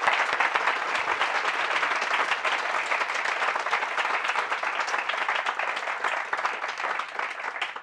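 Audience applauding: many people clapping together, dying away near the end.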